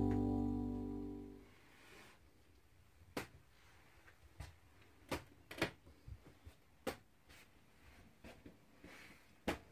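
Background music, apparently guitar-based, fading out over the first second and a half. Then it is quiet, with about half a dozen sharp, faint clicks and knocks.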